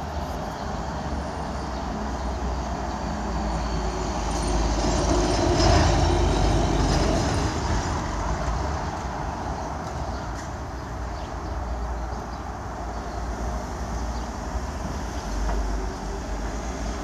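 Urban street traffic, with a passing vehicle growing louder to a peak about six seconds in and fading again.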